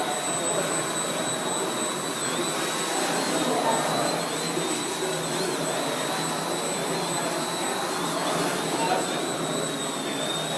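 Electric motors and propellers of a quadcopter–flying-wing hybrid running at speed: a steady high whine that wavers slightly in pitch over a rushing propeller wash.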